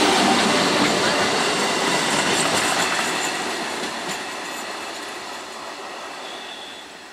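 ICF electric multiple-unit local train running past at speed, its wheels rumbling and clattering over the rails. The sound fades steadily as the train draws away.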